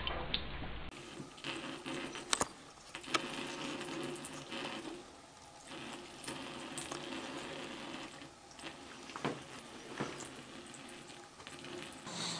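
Thin stream of tap water trickling from a faucet into a bathroom sink, with a few sharp clicks and taps scattered through it.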